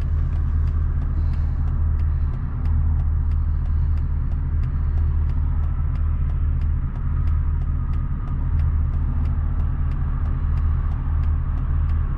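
1999 Mercedes E55 AMG's 5.4-litre V8 running steadily with a low rumble, just after a replacement coil pack was fitted to cure a misfire. A faint, regular ticking runs along with it, about three ticks a second.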